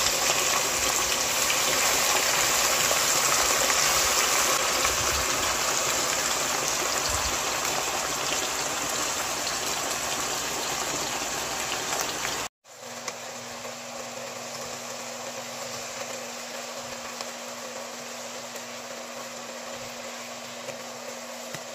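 Marinated pork tocino sizzling and bubbling in its liquid marinade in a nonstick frying pan. About twelve seconds in it cuts off abruptly for an instant, then the sizzling goes on more quietly over a steady low hum.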